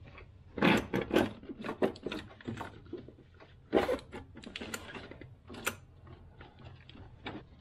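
Gloved hands pushing and bending the brake pipes and hoses around a master cylinder in an engine bay: irregular clicks, knocks and rattles, with sharper knocks about a second in, near four seconds and near six seconds.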